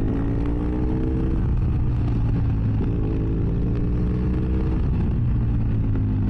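BMW F800S's 798 cc parallel-twin engine through a GPR Furore exhaust with its dB-killer removed, pulling under acceleration: the pitch climbs for about a second and a half, steps up again near three seconds in and keeps climbing, then falls away as the throttle eases. Heard from a microphone inside the helmet, over a steady low wind rumble.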